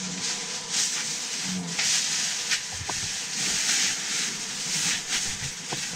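Plastic shopping bags rustling and crinkling in irregular bursts as groceries are handled and unpacked, with a few light knocks.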